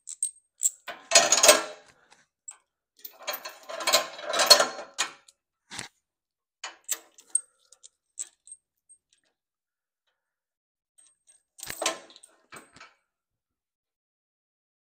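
Steel lifting chain clinking and rattling in bursts as it is looped around a riding mower's front axle. There are two longer rattles in the first five seconds, a few single clicks after them, and a last short rattle near the end.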